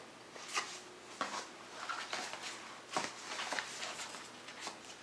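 Cardboard CD box set being handled and unpacked: light rustling, scraping and a scatter of short taps and clicks as the box and its contents are moved.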